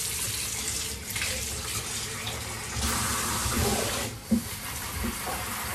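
Pull-out faucet running water into a deep utility sink, a steady splashing stream, with a short drop in the flow just after four seconds in.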